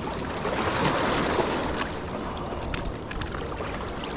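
Steady rushing of river water below the dam, swelling briefly about a second in, with a few faint ticks.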